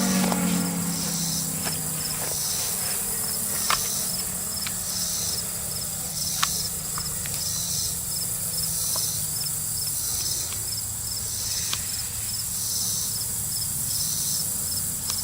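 The last of a Federal Signal Thunderbolt siren winding down, its low falling tone fading out within the first second or two. Then insects chirping in a steady pulsing chorus, about one pulse every second and a quarter, over a constant high buzz, with a few faint clicks.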